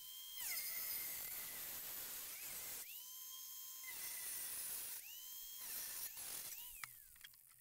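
Angle grinder with a cutting wheel cutting through the sheet-metal cowl of a Jeep Cherokee XJ: a rough grinding hiss, with the motor's whine rising and falling away several times. It dies away near the end.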